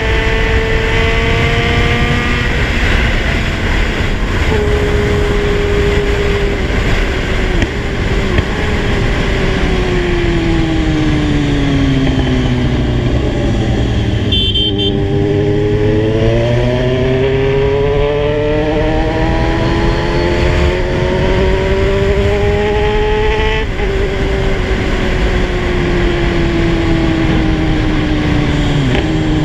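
Kawasaki Z1000 inline-four motorcycle engine under way, with heavy wind rush. The engine note winds down for several seconds as the bike slows, then climbs steadily under acceleration and drops suddenly about two-thirds of the way in at an upshift. A brief high beep sounds near the middle.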